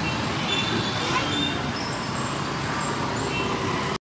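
Road traffic: vehicles running past on a busy street, with faint short high chirps over the steady noise. The sound cuts out briefly near the end.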